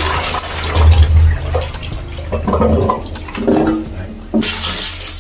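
A ceramic squat toilet being flushed: water gushes into the pan and then thins out as it drains. Near the end a fresh loud rush of water starts suddenly.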